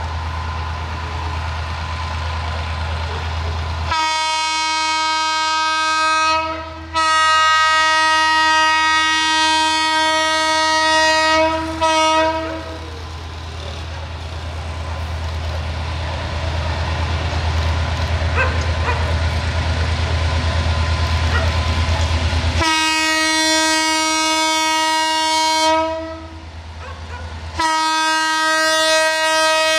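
Diesel locomotive's air horn sounding two pairs of long steady blasts, the first pair about 4 seconds in and the second about 23 seconds in, over the steady low rumble of the locomotive's diesel engine.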